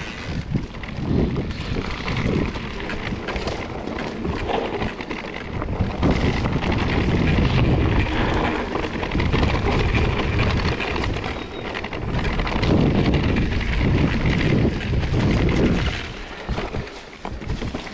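Mountain bike riding along a leaf-covered dirt trail: tyres rolling over dry leaves and dirt under heavy wind buffeting on the microphone, rising and falling as the bike moves.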